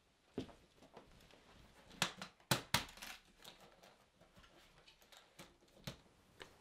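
Scattered sharp clicks and knocks from an aluminium instrument carrying case being set down, its catches snapped open, the meter lifted out and the lid shut. The loudest knocks come about two to three seconds in.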